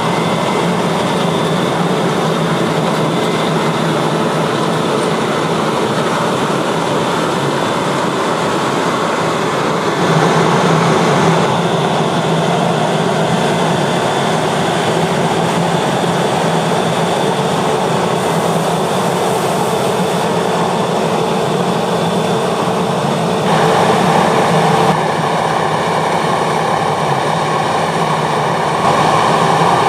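A New Holland CR 8.90 combine harvester running under load while harvesting wheat: a loud, steady drone of diesel engine and threshing machinery. Its tone shifts abruptly several times, about a third of the way in and again in the last few seconds.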